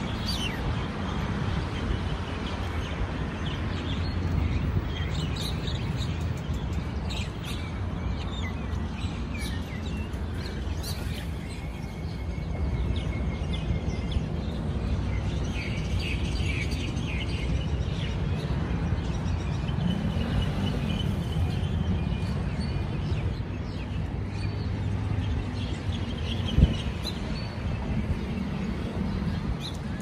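A flock of small birds chirping and calling, many short calls scattered throughout, over a steady low background rumble. A single sharp click sounds near the end.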